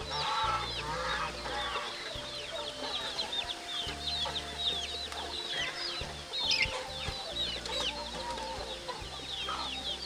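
Flock of chickens clucking, with many short high peeps throughout.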